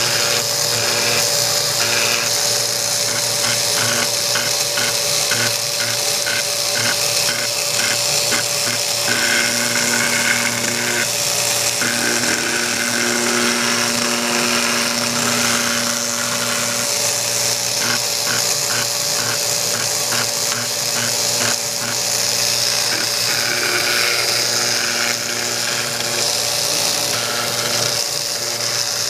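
Engraving machine working a metal sheet, its needle point scratching lines: a steady whine over a constant high hiss, with a regular pulsing of about two a second that comes and goes as the head moves.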